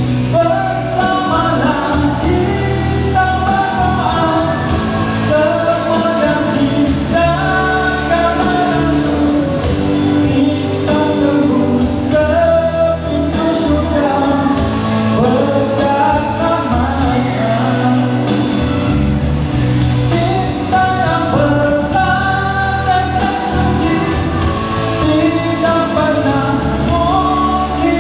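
Pop band music with a sung melody over a steady bass line.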